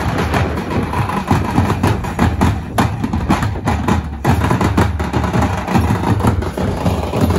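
A group of large stick-beaten drums, strapped bass drums with metal shells and a smaller drum, played together in a loud, fast, continuous rhythm.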